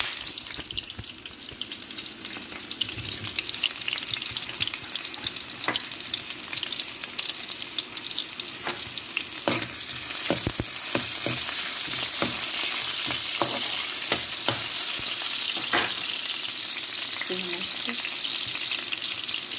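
Garlic and ginger sizzling in hot cooking oil in a pan, with scattered clicks and scrapes of a spatula stirring them. The sizzle grows louder about halfway through.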